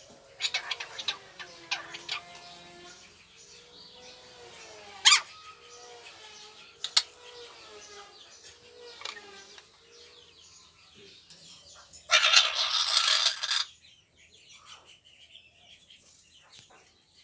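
A bird chirping and warbling, with several sharp high chirps. About twelve seconds in there is a loud, harsh noisy burst lasting about a second and a half, followed by fainter chatter.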